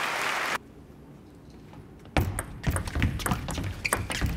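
Applause cuts off abruptly, followed by a short lull. Then a table tennis rally begins, with rapid, irregular sharp clicks of the celluloid ball on the rackets and table, along with thumps of the players' feet on the court.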